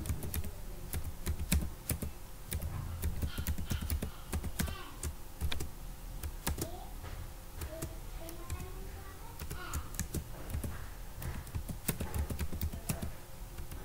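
Typing on a computer keyboard: quick, irregular key clicks coming in short runs.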